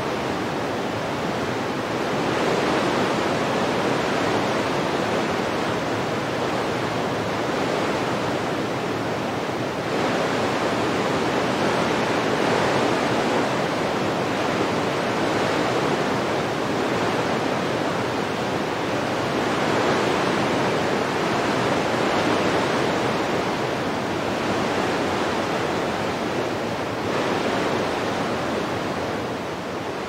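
Wind blowing: a steady rushing noise that swells and eases gently every few seconds.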